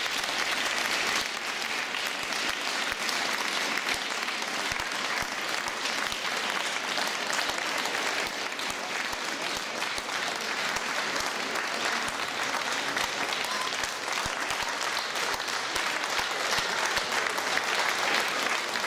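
Audience applauding steadily, a little louder near the end.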